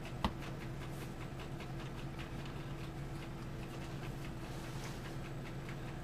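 Faint clicks and scratches of a small screwdriver prying at the edge of a laptop's plastic bottom cover, with one sharper click about a quarter second in, over a steady low hum. The cover's snap clips are holding tight.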